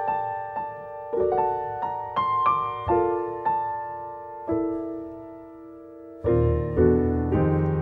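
Piano playing a slow instrumental introduction: single struck notes in a gentle melody over chords, each ringing and fading, then a held chord dies away before fuller chords with a low bass come in about six seconds in.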